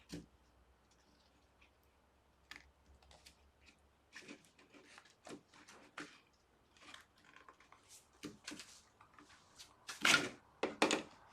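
Small plastic toy parts being handled and clicked together: scattered light clicks and taps, with a louder clatter near the end.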